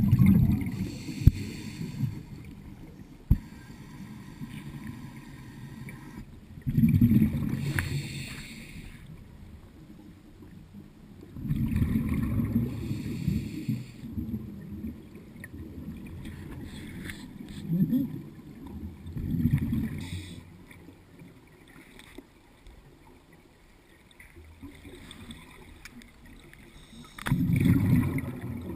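Scuba diver breathing through a regulator underwater: bursts of bubbling exhaust roughly every six seconds, with a quieter hiss between them.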